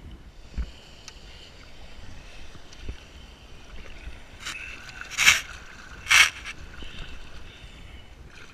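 Kayak paddling on open water: a steady hiss of moving water with a few light knocks, and two loud splashes of the paddle blade about a second apart, a little past halfway.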